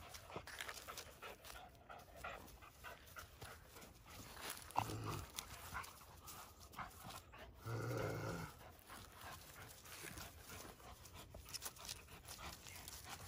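Young Rottweiler panting from exertion while tugging on a rope toy, with two brief low vocal sounds about five and eight seconds in, the second the louder.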